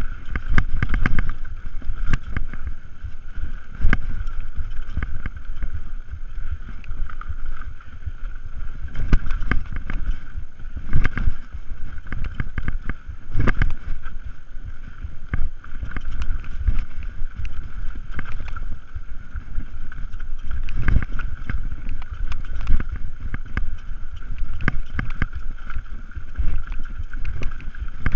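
Mountain bike rolling fast down a dirt trail: wind buffeting the microphone in a constant low rumble, with frequent sharp knocks and rattles as the bike hits roots and bumps.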